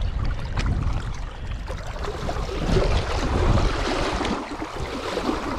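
Wind buffeting the microphone: a gusting low rumble with an airy hiss that rises and falls.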